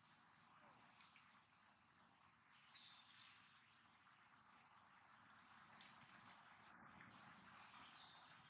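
Near-silent forest ambience: a faint, steady high-pitched insect trill, with a brief chirp about three seconds in and a couple of faint clicks.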